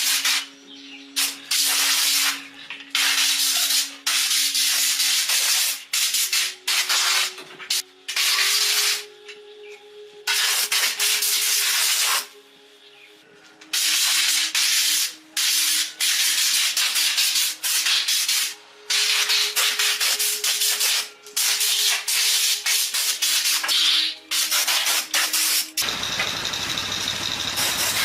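Compressed-air tool hissing in repeated on-off bursts, each from a fraction of a second to a few seconds long, over a faint steady hum. About two seconds before the end a steady low-pitched machine starts running.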